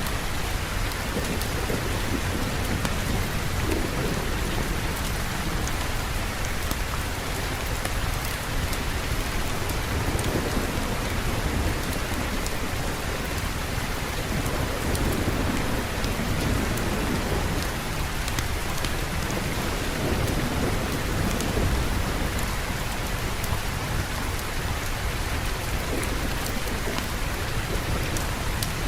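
Steady heavy rain falling in a dense hiss, under a continuous low rumble of distant thunder that swells and fades several times.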